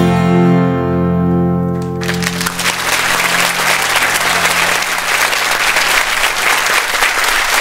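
The final chord of a song on acoustic guitar and piano ringing out, then audience applause breaking in about two seconds in and continuing.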